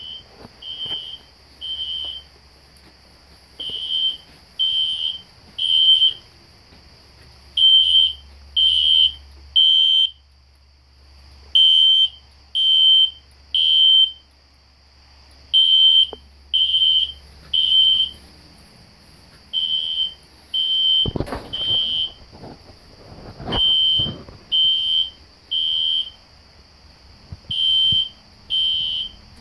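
System Sensor SpectrAlert Classic horn strobe on its low volume setting, sounding the temporal-three evacuation pattern: three high beeps about a second apart, repeating about every four seconds. A steady high whine runs underneath, and a few low knocks come about two-thirds of the way through.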